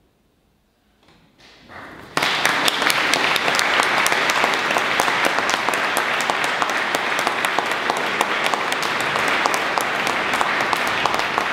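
Near silence for a moment, then an audience in a theatre breaks into applause about two seconds in, a dense, steady clapping with many separate sharp claps that carries on.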